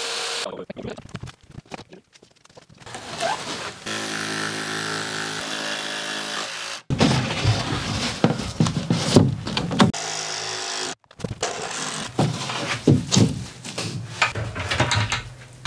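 A power tool's motor runs steadily for about three seconds and cuts off abruptly, followed by a run of knocks and clatter as OSB wall panels are handled and fixed in place.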